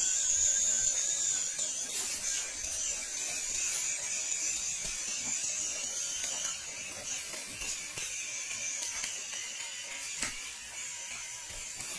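Small electric motor and gearbox of a 1/12-scale MN-91 RC Land Rover Defender whirring as it crawls over loose gravel, with an occasional click from stones under the tyres. It is loudest in the first couple of seconds while the truck passes close by, then quieter as it drives away.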